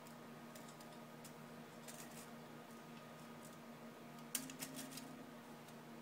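Light metallic clicks and taps as the head gasket and top-end parts are handled and fitted onto a Honda 300 ATV engine's cylinder, with a quick run of sharper clicks about four and a half seconds in. A faint steady hum lies underneath.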